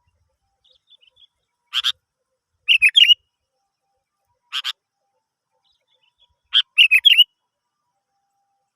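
Sooty-headed bulbul (kutilang) calling: short scratchy notes and two quick, bubbly whistled phrases, each phrase coming in a couple of seconds apart, as used in a lure recording to make kept kutilang sing.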